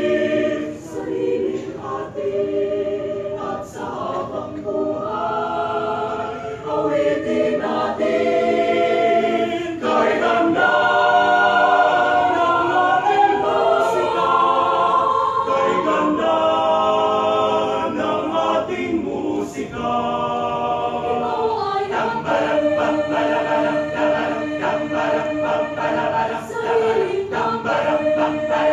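University chorale singing a cappella in several parts, holding and moving through close-voiced chords.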